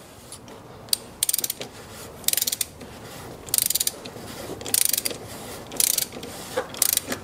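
Click-type torque wrench ratcheting as it tightens a 3.6 V6 engine's plastic oil filter housing cap, set to 25 N·m. There are about six short runs of rapid pawl clicks, roughly one a second, one for each return swing of the handle.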